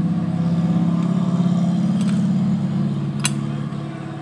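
A motor vehicle's engine running close by, a steady low hum that fades away near the end, with a sharp click about three seconds in.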